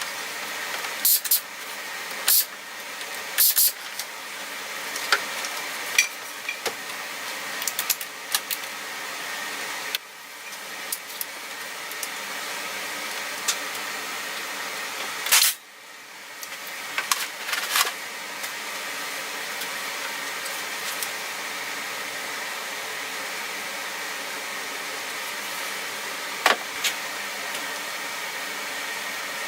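A steady mechanical hum with irregular clicks and knocks over it, most of them in the first few seconds and in a cluster about halfway through.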